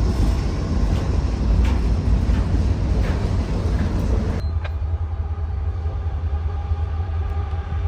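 Freight train rumbling heavily, with clicks over the rumble. A little over halfway through, the hiss cuts off abruptly, leaving the low rumble and a steady engine hum.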